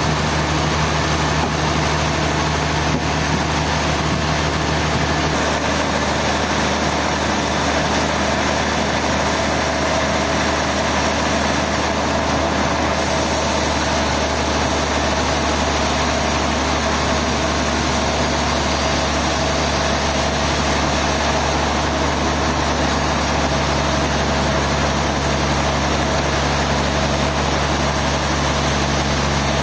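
A heavy engine running steadily at a constant speed, its sound shifting about five seconds in and growing brighter and hissier about thirteen seconds in.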